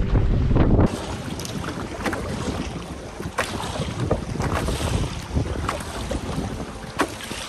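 Wind buffeting the microphone over choppy lake water splashing around a paddled canoe. The heavy wind rumble drops away about a second in, leaving lighter lapping and scattered sharp splashes.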